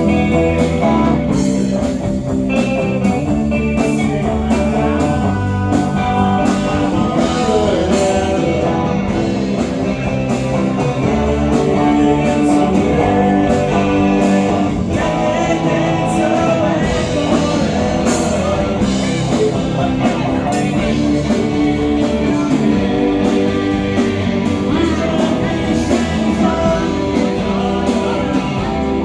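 Rock band playing live through a PA during a sound check, led by electric guitar over a steady beat, with a voice singing.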